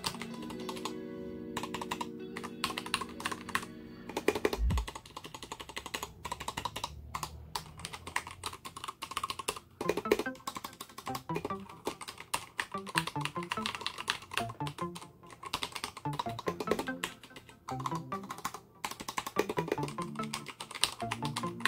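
Typing on an Akko 3084 Silent mechanical keyboard: a steady run of irregular keystroke clicks and clacks, with background music underneath. To the owner, it sounds about like an ordinary mechanical keyboard rather than a silent one.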